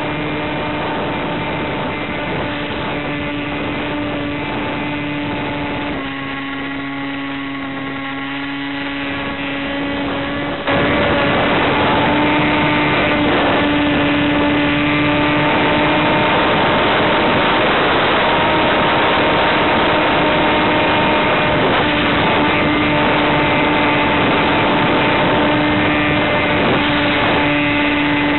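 Electric motor and propeller of an EasyStar FPV model plane running under power, a steady pitched whine. About six seconds in, the note drops a little and quietens as the throttle eases. Just under eleven seconds in it jumps back louder and holds steady at higher power.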